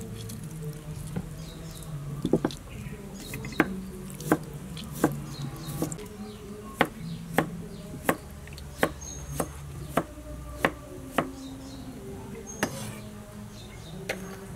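Knife chopping on a wooden cutting board: single sharp strikes about once a second, starting about two seconds in and stopping near the end.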